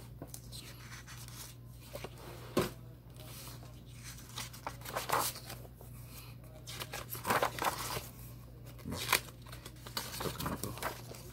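Paper record sleeves rustling and scraping in irregular bursts as 45 rpm vinyl singles are handled, over a steady low electrical hum.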